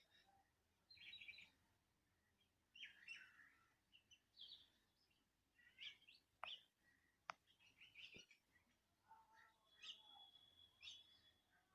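Several birds chirping and calling faintly in short scattered phrases with pauses between them, with one held whistle near the end. Three sharp clicks come around the middle.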